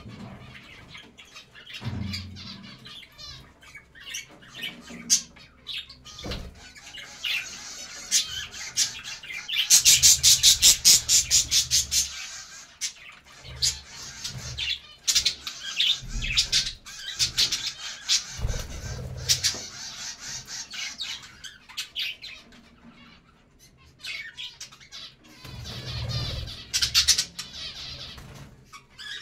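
A flock of budgerigars chattering and chirping, with many short clicks. A loud run of rapid repeated calls comes about ten seconds in, and another louder burst comes near the end.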